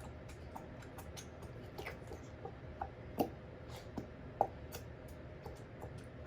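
Faint, scattered clicks and taps with a few short squeaks, the sound of small objects being handled.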